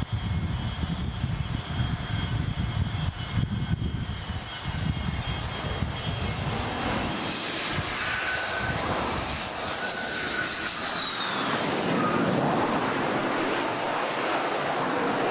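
Aircraft turbine engines running with a steady roar and a high whine that glides up and down, dropping away about eleven seconds in; heavy low rumble in the first few seconds.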